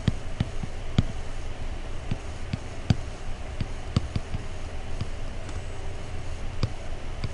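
Stylus pen tapping and clicking on a tablet screen during handwriting: irregular light clicks, about one or two a second, over a steady low hum.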